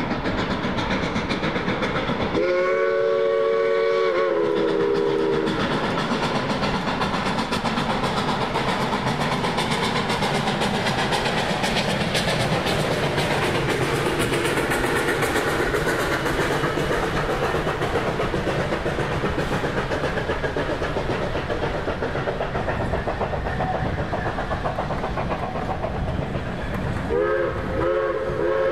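Narrow-gauge steam train passing with freight cars, the wheels clicking over rail joints under the locomotive's working exhaust. About two seconds in, the steam whistle blows one blast of several notes sounding together, lasting about three seconds and sagging in pitch as it ends. A second whistle blast starts near the end.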